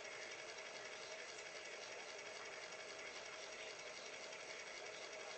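Sony CDP-M19 CD player's transport spinning a disc and reading it, a steady whirring hum from the spindle motor and laser servo.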